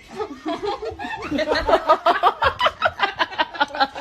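A person laughing hard in quick repeated bursts, getting louder about a second and a half in.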